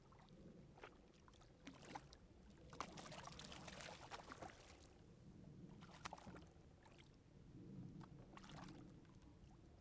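A hooked bass thrashing and splashing at the water's surface beside a kayak, with one longer burst of splashing about three seconds in and a few short splashes after it.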